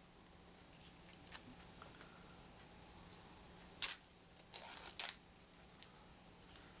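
Plastic shrink-wrap being torn and peeled off a sealed deck of cards: a few short, sharp crackles and rustles, the loudest about four and five seconds in.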